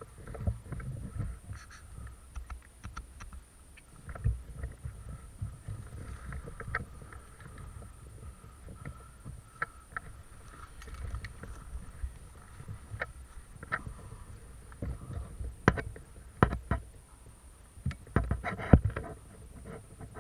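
Irregular low rumble of wind and handling noise on the microphone, with scattered sharp clicks and knocks, the loudest cluster near the end.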